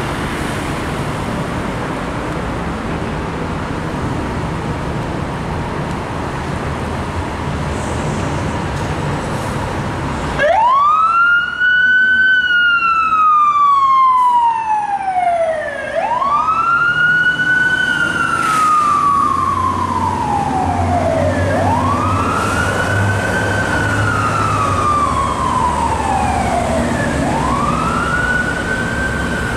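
Street traffic, then about ten seconds in a fire engine's siren starts up in wail mode. Each cycle rises quickly and falls slowly, repeating about every five and a half seconds, a little quieter near the end as the engine pulls away.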